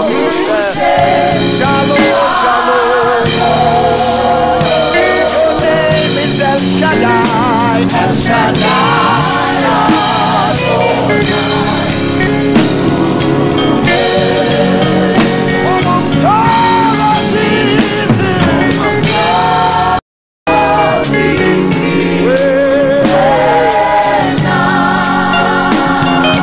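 Live gospel praise-and-worship music: a lead singer and a group of backing vocalists singing over a band with drums. The sound cuts out completely for about half a second near the twenty-second mark.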